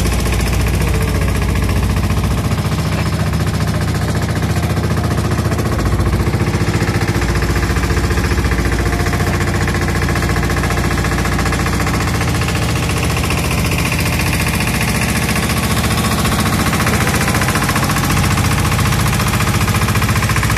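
Small boat motor running steadily with the boat under way, a fast, even pulsing held at one speed throughout.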